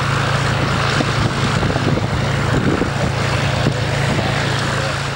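Cessna 172 single-engine propeller plane's piston engine running steadily as the plane taxis.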